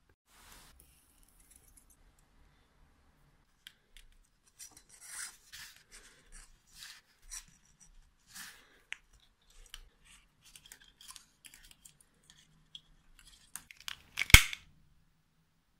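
Light handling noises of a small perfboard PCB and thin hookup wire being worked by hand: scattered short scrapes and rustles, then one sharp click near the end.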